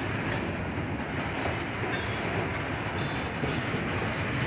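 Freight train of tank cars rolling past, a steady rumble of wheels on rail. Brief high-pitched wheel squeals come three times.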